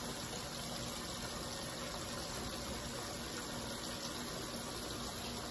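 A steady, even rushing noise with a faint low hum underneath, unbroken throughout.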